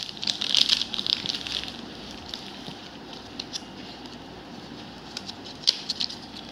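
Plastic packaging crinkling as a cosmetic compact is unwrapped by hand, busiest in the first second or two, then quieter rustling with small clicks and one sharper click near the end.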